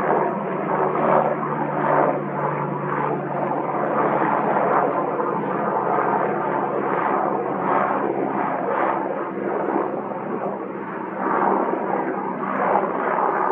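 Airbus EC145 twin-turbine helicopter flying overhead: a steady drone of rotor and engine noise with a low hum underneath, swelling and easing slightly in loudness.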